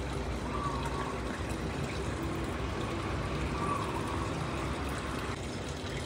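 Water running steadily into the tub of a Toshiba SDD Inverter top-loading washing machine as it fills, with the water at the overflow level.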